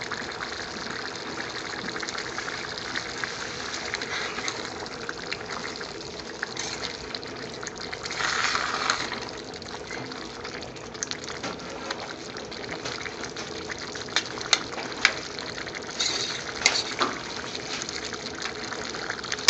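A large pot of thick onion base gravy simmering on the stove, bubbling with scattered small pops over a steady rushing hiss. It gets briefly louder about eight seconds in.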